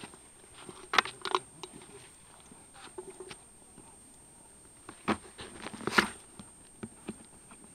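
Handling noise on an action camera: scattered knocks and rustles against the housing, loudest about a second in and again around six seconds in.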